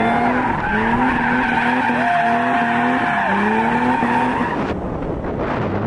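BMW E30 with a welded rear differential spinning donuts, heard from inside the cabin: the rear tyres squeal while the engine revs climb and drop again and again, showing the welded diff locking both rear wheels. The squeal and revving stop about four and a half seconds in, leaving a rushing rumble.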